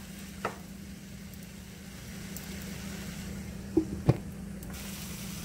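Shredded cabbage and vegetables sizzling softly in a skillet while being stirred with a spatula, with two light knocks about four seconds in as a glass lid is set on the pan.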